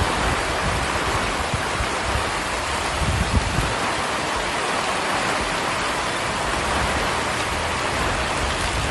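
Heavy rain falling on a street and pavement: a steady, dense hiss, with a brief low rumble about three seconds in.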